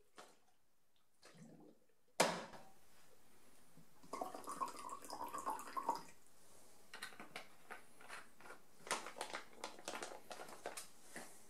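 Foil chemical pouches and a plastic measuring beaker being handled on a tabletop. There is a sharp knock about two seconds in, then stretches of crinkling and rustling from a foil bag.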